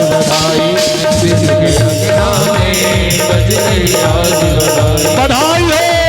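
Instrumental interlude of a Hindi devotional bhajan: a held organ-like note over a steady drum beat that comes in about a second in, joined by a rhythmic shaker-like rattle about two seconds in.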